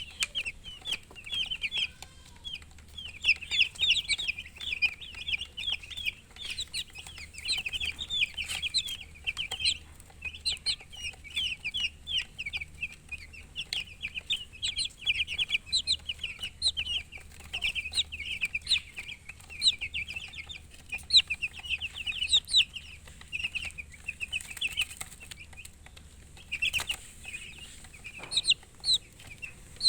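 A group of baby chicks peeping continuously: many short, high chirps overlapping in quick runs. A couple of brief noise bursts come near the end.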